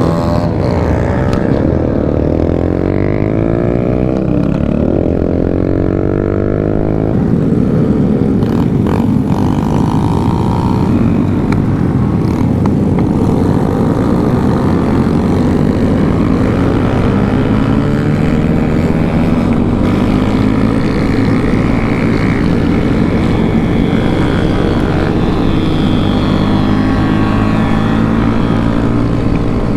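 Several small mini-motorcycle and scooter engines running together, revving up and down with many pitches rising and falling over each other.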